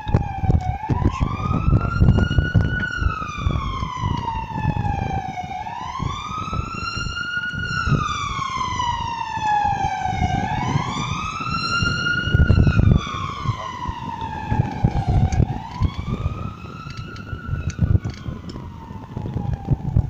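Emergency vehicle siren in a slow wail, each cycle rising quickly and falling slowly, about once every five seconds, heard over an uneven low rumble.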